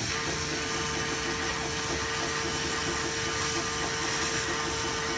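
Oxy-fuel cutting torch hissing steadily as it cuts through a steel truck chassis rail, with a steady one-pitch whine alongside.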